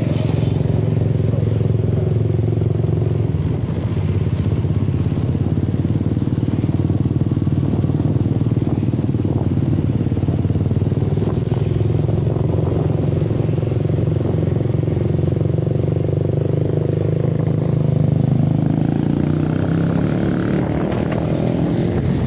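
Motorcycle engine running steadily while riding, heard from the passenger seat, with road and traffic noise; the engine note rises near the end.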